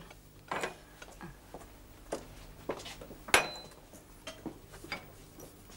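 Crockery and cutlery clinking and knocking as dishes are handled, a scattered series of light clinks. The loudest comes about three seconds in, with a short ringing note.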